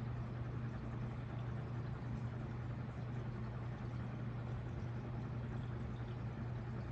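IKEA ceiling fan running steadily: a constant low motor hum under an even rushing noise.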